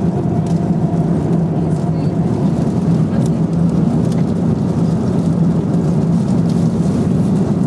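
Steady cabin noise of an Airbus A350 in cruise: a constant rush of airflow and engine drone, with a steady low hum underneath.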